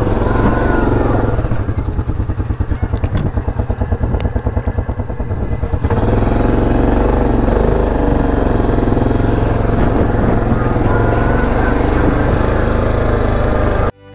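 ATV engine idling with a fast, even pulse, then running steadily under throttle from about six seconds in as the quad moves off; the sound cuts off abruptly near the end.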